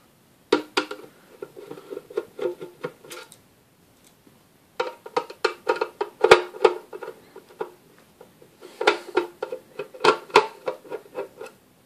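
Screwdriver backing screws out of a lab power supply's steel case cover: three bursts of rapid clicking, each two to three seconds long, with a pitched metallic tone under the clicks.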